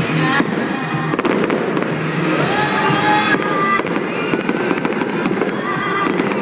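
Fireworks show going off in rapid succession, a dense run of bangs and crackle, with music playing alongside.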